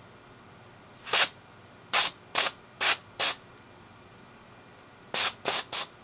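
Aerosol electronics cleaner sprayed in eight short squirts onto a headphone's volume control and switch: one squirt, then a run of four, then three more close together.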